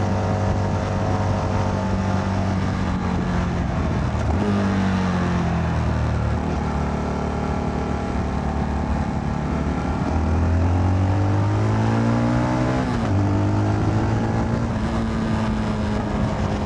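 Motorcycle engine of a CFMoto 300NK under way, heard from the rider's seat. Its note climbs twice under throttle and drops sharply about thirteen seconds in, then holds steady.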